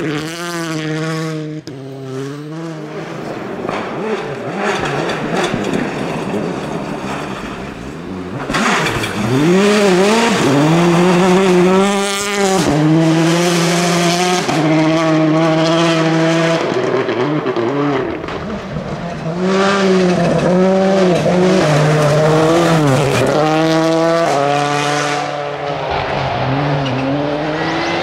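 Ford Focus WRC rally car engines, turbocharged four-cylinders, revving hard at full throttle and dropping back with each gear change and lift. The pitch climbs and falls many times over several passes.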